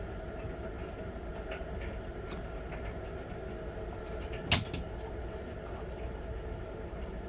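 Miele Novotronic W921 washing machine running with a steady hum and low rumble, with one sharp click about four and a half seconds in.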